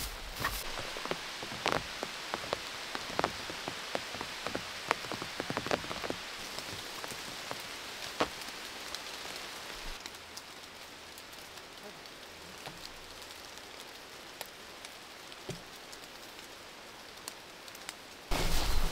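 Rain falling steadily, with many individual drops clicking sharply on a nearby surface. About ten seconds in it becomes quieter, and just before the end a louder, different sound cuts in.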